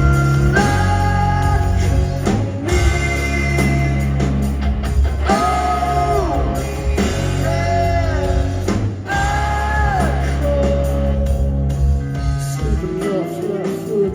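Live rock band playing through a concert hall PA, with heavy sustained bass and guitar under a voice singing long held notes that slide in pitch. The low end drops away about two seconds before the end.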